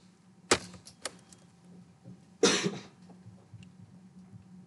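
Computer keyboard keys clicking sharply twice, about half a second and a second in, as a line of code is finished and saved. A short burst of noise, like a cough, comes about two and a half seconds in, over a faint steady hum.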